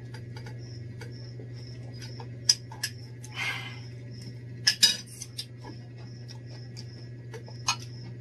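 Spoons and cutlery clinking against ceramic plates as people eat: a handful of sharp clinks, with a quick cluster of the loudest ones around the middle and a short soft rustle just before. Underneath, a steady low hum and a faint high chirp repeating about three times a second.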